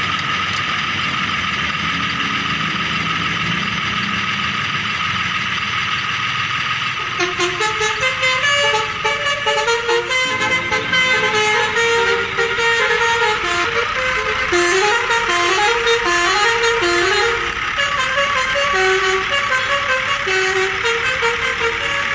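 A steady horn-like tone sounds for about seven seconds. Then it changes into a quick electronic melody of short stepping notes, like a musical horn or a toy's sound chip.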